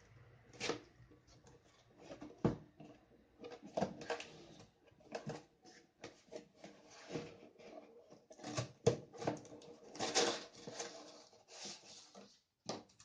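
Packaging being handled as a box is opened: irregular rustling, scraping and sharp knocks of cardboard and plastic.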